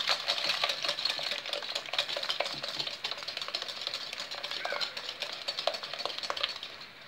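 Wire hand whisk beating eggs and sugar in a ceramic bowl: a fast, steady run of clicks and scrapes as the wires strike the bowl, whipping the mixture until the sugar dissolves.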